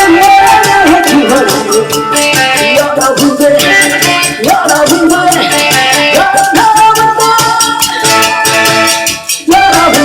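Korean trot song playing loud over a backing track: a woman singing a wavering melody over a fast, rattling, evenly pulsed beat. The music drops out briefly near the end.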